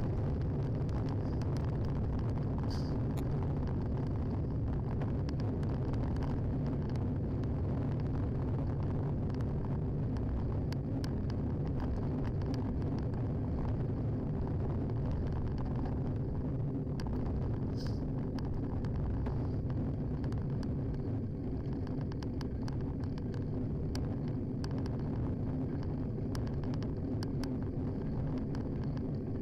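Riding noise from a bicycle on the road, picked up by a handlebar-mounted action camera: a steady low rumble of wind on the microphone and tyres on tarmac, with scattered small clicks and rattles throughout.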